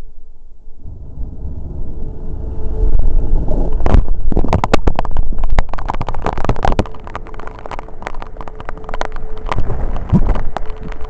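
A tornado warning siren holds a faint steady tone beneath loud, crackling, rumbling storm noise that builds up about a second in.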